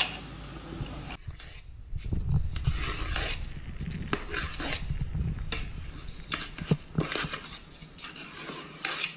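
Metal spatula stirring rice in a large aluminium pot, scraping and clinking against the pot at irregular intervals, with the grains rustling as they are roasted in ghee.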